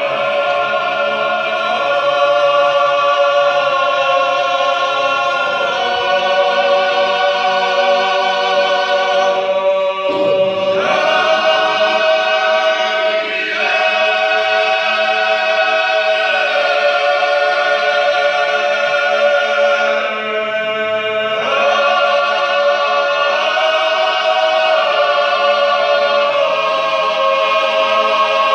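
Georgian folk choir, mostly men's voices, singing unaccompanied in several parts. It holds long chords in phrases that break off and re-enter every few seconds, over a steady low held note.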